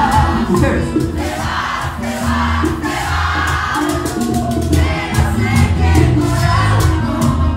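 Live bachata band playing loud through a club PA: a male lead singer over heavy bass and steady percussion, with crowd voices mixed in.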